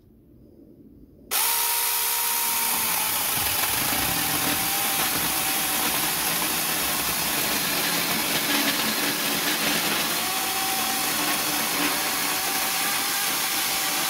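Cordless mini chainsaw running on an 18 V Makita battery, switched on suddenly about a second in and cutting through a log. Its motor whine drops in pitch as the chain bites into the wood, then holds steady under load with the rasp of the chain chewing through.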